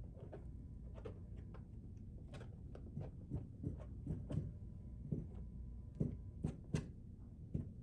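Palette knife dabbing thick oil paint onto a stretched canvas: a run of irregular dull taps as the blade meets the canvas, more frequent and louder in the second half.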